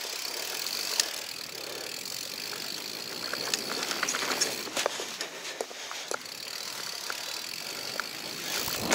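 Mountain bike rolling down a dirt singletrack: steady tyre noise on the trail, with sharp clicks and rattles from the bike over bumps and roots, several scattered through.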